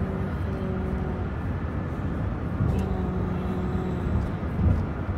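Steady low rumble of a car's cabin on the move, with a faint held tone that sounds twice, once briefly at the start and again for longer in the middle.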